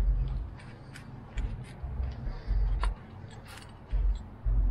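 Light metallic clicks and taps as new spring-steel anti-rattle clips are pressed into a Mercedes Sprinter's brake pad holder (caliper bracket) by hand, with several dull low thumps in between.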